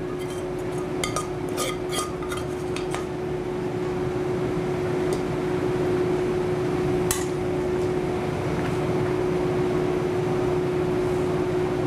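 A metal serving spoon clinks against a metal sauté pan and a porcelain plate as sauce is spooned onto ravioli. There is a quick run of clinks in the first three seconds and one more about seven seconds in, over a steady background hum.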